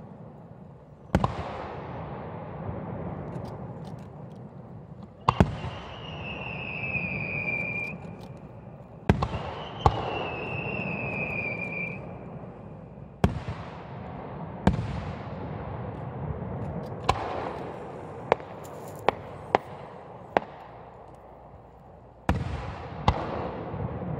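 Aerial firework shells bursting one after another: sharp bangs every few seconds, some in quick pairs, each followed by a long rolling echo. Twice a high whistle falls slowly in pitch over about two seconds.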